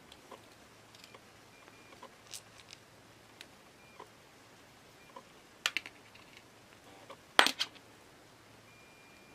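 Small parts of an ABU Ambassador 4500C baitcasting reel (drag washers and the brass main gear) clicking and clinking as they are handled and set down on a metal tin tray. Scattered light clicks, a quick cluster a little before six seconds in, and the loudest rattle about seven and a half seconds in.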